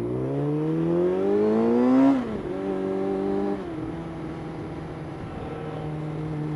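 Suzuki GSX-R600's inline-four engine accelerating, its note rising for about two seconds and then dropping sharply at a gear change. It holds steady briefly, eases off about three and a half seconds in, and runs on at a lower steady pitch.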